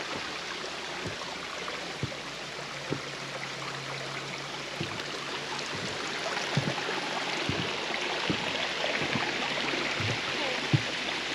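Small forest stream running over rocks, a steady rushing that grows a little louder in the second half, with footsteps on the trail at about one a second.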